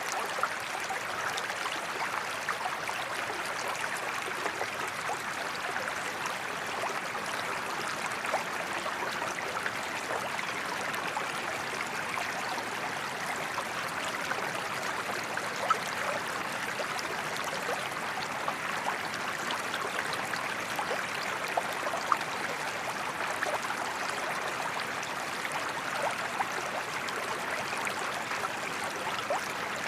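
Small forest creek running over stones, a steady burble of water with many little splashes and trickles.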